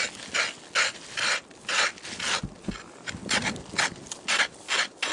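Rhythmic scraping strokes on glacier ice and snow, about two a second, each a short rasp.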